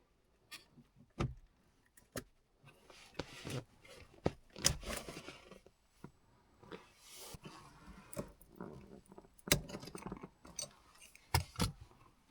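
Hands working on a car's shifter and console trim: scattered clicks, taps and rustles of plastic parts and a tool, with a few sharper snaps.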